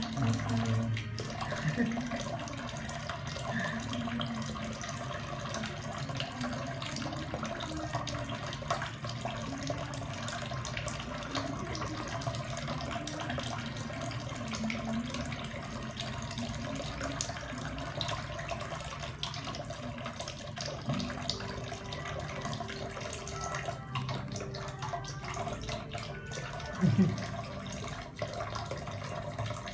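Thin stream of tap water running steadily into a stainless steel kitchen sink, with one brief louder bump near the end.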